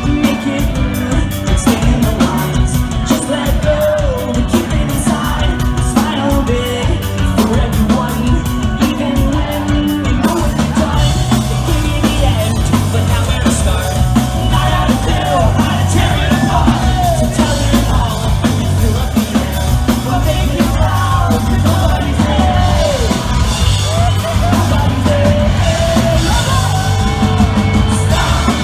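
A pop-punk band playing live, heard from the crowd: electric guitars, bass, drums and electric violin at full volume. A steady beat of high strokes runs through the first ten seconds, and lead singing comes in about ten seconds in.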